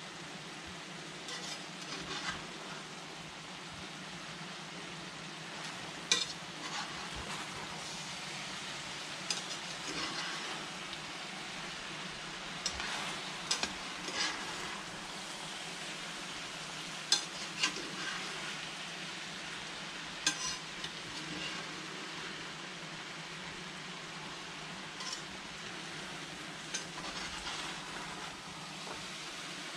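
Green beans, carrots and meat sizzling in a frying pan while being stirred with a metal spatula: a steady frying hiss, with the spatula scraping and knocking against the pan every few seconds.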